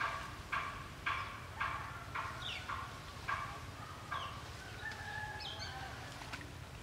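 An animal calling in a regular series of short, pitched calls, about two a second, that fade out about four seconds in, followed by a few thinner, higher calls.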